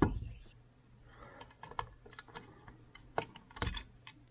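Small metal clicks and taps of a hand tool working an E-clip off the water pump shaft. There is a sharp click at the start, then scattered light clicks, with a louder cluster about three and a half seconds in.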